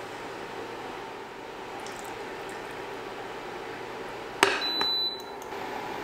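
A ladle knocks once against a glass mixing bowl of crepe batter about four seconds in, a sharp clink with a short ring. Steady soft background hiss throughout.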